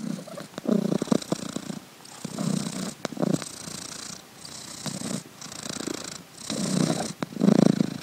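A domestic cat purring, the purr swelling and fading in a regular rhythm.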